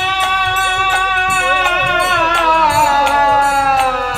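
Matua devotional kirtan: voices hold a long sung note that slides down in pitch over the last couple of seconds. Brass hand cymbals and a hand drum keep a steady beat underneath.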